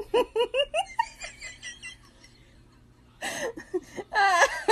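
A person giggling in a quick run of short, high-pitched bursts. After a short lull, a longer, wavering high laugh or coo comes near the end.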